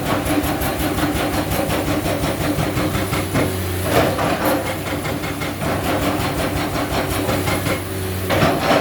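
Excavator diesel engine running steadily under work, with a couple of louder knocks or clanks, about four seconds in and near the end.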